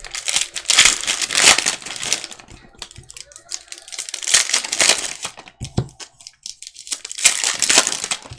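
Basketball trading-card pack wrappers of foil and plastic being torn open and crumpled by hand, crackling in three loud bursts of a second or two each.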